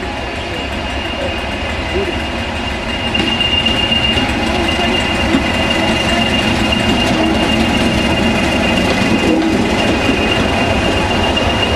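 Light-engine convoy of diesel locomotives passing close, class 37 no. 37606 leading and class 20 no. 20308 behind it, their engines running over the rumble of wheels on rail, with a steady high wheel squeal. Louder from about three seconds in as the locomotives draw level.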